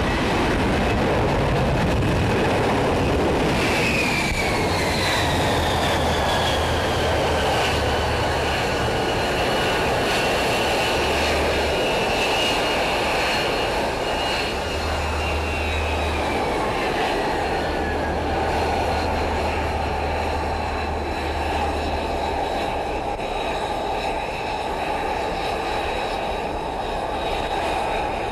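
Lockheed Martin F-35B's Pratt & Whitney F135 jet engine and lift fan, running loud through a vertical landing and then winding down on deck. A steady jet roar carries a high whine that falls in pitch from about four seconds in until around twenty seconds.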